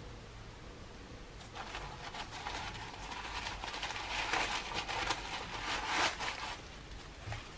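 Shoe-box tissue paper crinkling and rustling as gloved hands lift and turn a running shoe in its box. It starts about a second and a half in, is loudest near the end, and is followed by a short click.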